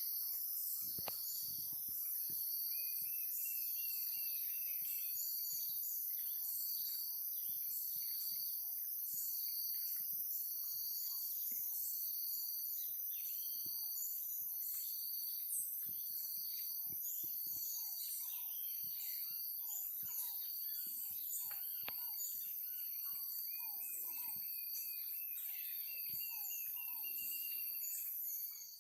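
Daytime woodland chorus: insects shrill steadily and high, with a regular pulsing call about once a second, while birds chirp and give chattering phrases over it. The high insect shrill cuts off near the end.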